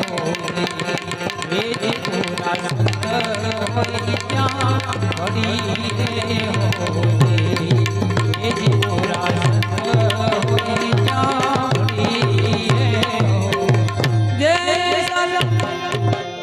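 Instrumental interlude of a Gujarati bhajan: a harmonium plays a sustained melody over tabla. About three seconds in, the deep bass-drum strokes come in, many of them sliding in pitch.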